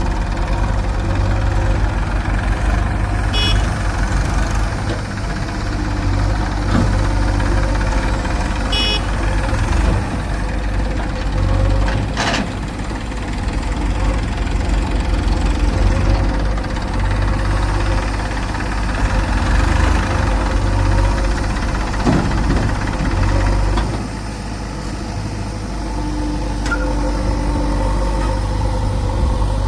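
Diesel engine of heavy machinery (a backhoe loader or farm tractor) running steadily, with a sharp knock about twelve seconds in.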